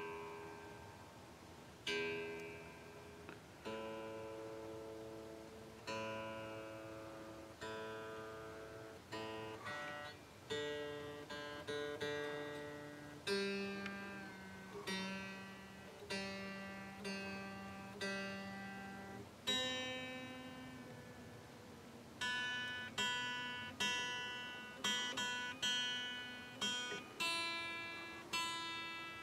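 Strings of a Fender American Telecaster plucked one at a time during tuning, each note ringing out and fading. The notes come every second or two at first, the pitch shifting from note to note, and about two a second near the end.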